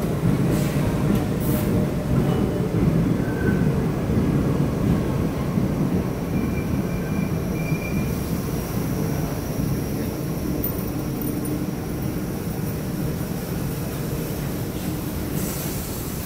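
New York City Subway 1 train of R62A cars running past along the station platform: a steady rumble of steel wheels on rail, with a few brief faint wheel squeals, easing slightly toward the end.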